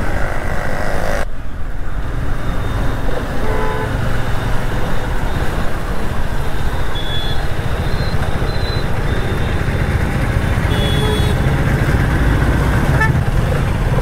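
Hero Karizma XMR 210's 210cc liquid-cooled single-cylinder engine running on the move in city traffic, with road noise. Brief horn toots from surrounding vehicles come a few times in the second half.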